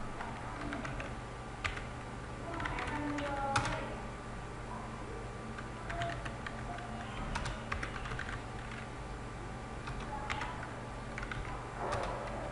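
Computer keyboard typing: irregular, scattered key clicks, over a steady low hum.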